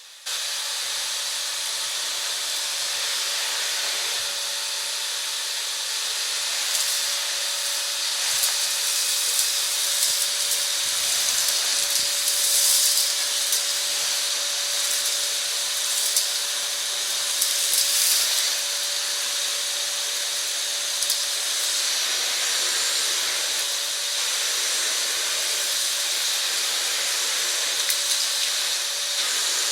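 Vacuum cleaner running: a steady high rush of air over a single steady motor whine, the hiss growing rougher and louder at times.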